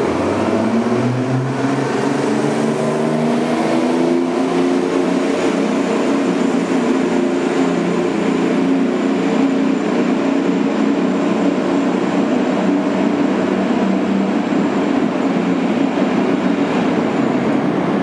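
GMC RTS city bus's Detroit Diesel 6V92 two-stroke V6 diesel running hard as the bus accelerates away, its pitch rising over the first few seconds and then holding steady.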